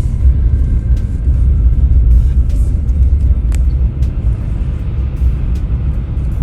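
Steady low road and engine rumble heard inside a small car's cabin while it drives down a partly icy road, with a few sharp ticks here and there.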